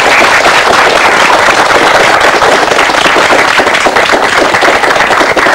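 Studio audience applauding: many hands clapping together at once, loud and steady.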